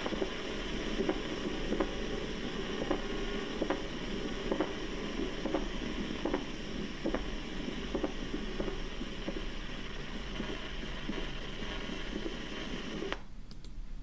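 Recorded heart sounds with a diastolic (pericardial) knock: short beats about once every 0.9 seconds over a steady recording hiss. The early diastolic knock is the sign of constrictive pericarditis. The recording stops about a second before the end.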